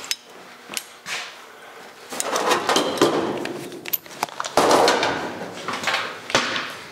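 Irregular clicks, knocks and scraping of metal parts and tools being handled, with two louder stretches of scraping, about two seconds in and again about four and a half seconds in.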